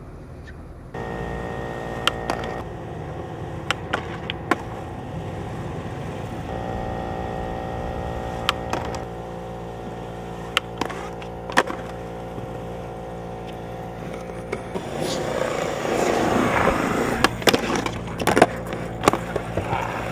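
Skateboard wheels rolling on concrete, with sharp clacks from the board popping and landing, over a steady hum. The rolling grows louder and rougher in the last few seconds, with a cluster of clacks.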